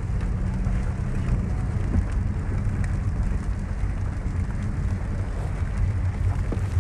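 Steady low rumble of a car driving on a wet road in rain, heard from inside the cabin: engine hum and tyre noise, with rain hitting the car.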